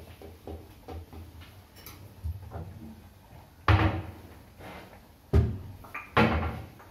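Light kitchen handling clicks, then three loud knocks, the first about a third of the way in and two more close together near the end, each ringing briefly.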